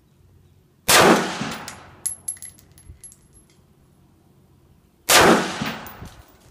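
Two rifle shots from a scoped AR-style rifle, about four seconds apart, each dying away over about a second. A few light metallic clinks follow the first shot.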